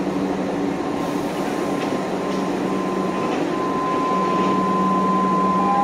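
Osaka Metro Sakaisuji Line subway train at an underground platform: a steady rumble with a low electrical hum, and a higher steady whine joining about halfway through.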